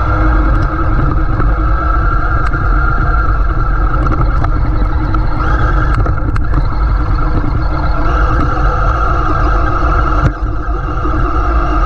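Traxxas MAXX RC monster truck driving: a steady electric motor and drivetrain whine over a heavy low rumble from the truck running over rough ground, with one sharp knock about ten seconds in.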